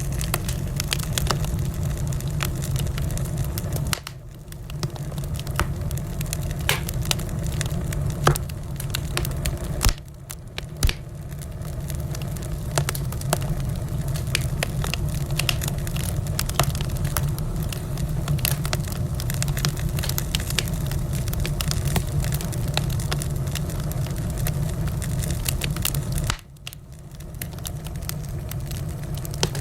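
Wood fire crackling and popping with sharp snaps over a steady low rumble of flames. The sound drops away briefly three times, about 4, 10 and 26 seconds in.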